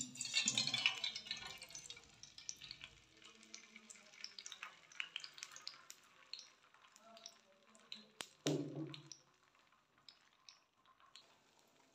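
Beaten eggs hitting hot cooking oil in a metal frying pan, sizzling loudly at first. The sizzle fades over a couple of seconds into scattered crackles and pops as the egg sets. A single sharp click comes a little past the middle.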